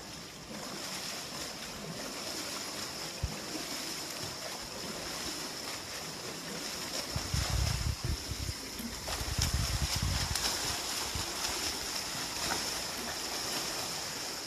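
Water sloshing and splashing as a swimmer pulls himself up on the pool edge and then sprints freestyle, arms and kicks churning the water, over the steady hiss of an indoor pool hall. Low rumbles come in about seven seconds in and again from about nine to eleven seconds.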